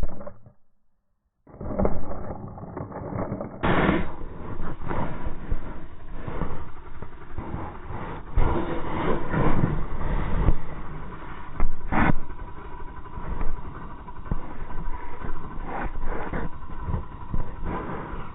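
Chainsaw engine running, with uneven louder surges. It cuts in abruptly about a second and a half in.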